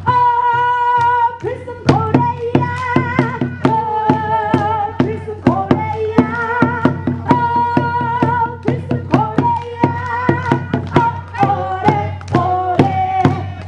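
Music: a melody of held, slightly wavering notes over a quick, steady beat of sharp strokes.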